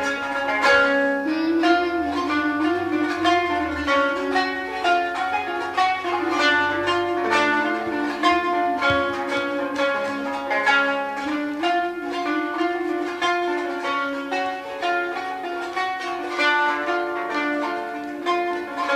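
Instrumental break in a Kurdish song: a plucked string instrument plays a quick run of notes over the band, with no singing.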